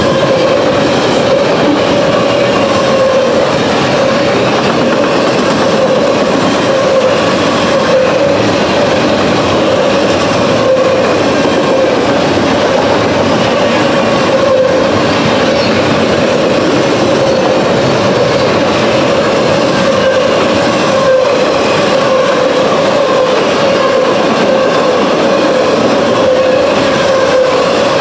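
Double-stack intermodal freight train cars rolling past at close range: a loud, steady rumble and clatter of wheels on rail, with a steady tone that wavers slightly running through it.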